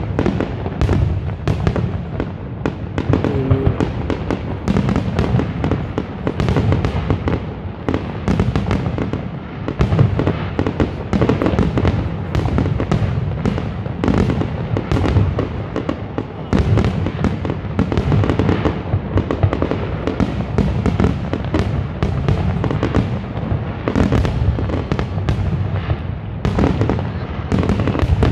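Aerial fireworks going off in a dense, unbroken barrage: many bangs a second overlapping one another, mixed with crackling from the bursting shells.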